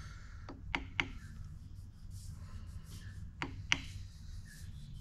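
Soft-faced hammer tapping an aluminium workpiece down in a milling-machine vise to seat it flush: three light taps about half a second to a second in, then two more a little after three seconds.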